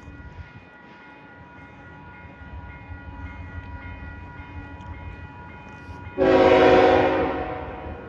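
Kansas City Southern diesel locomotive approaching with a low rumble that builds, then one loud horn blast about six seconds in, lasting about a second and a half before fading.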